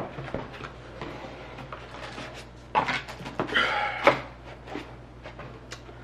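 Cardboard box and paper packing being handled: scattered taps and light scrapes, with louder rustling and sliding of card about three seconds in.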